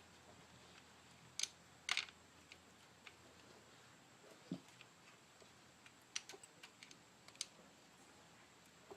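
Scattered light clicks and taps of metal parts and hand tools handled on an engine during timing-chain reassembly. There are two sharper clicks near the start, a duller knock mid-way, and a quick run of small ticks later on.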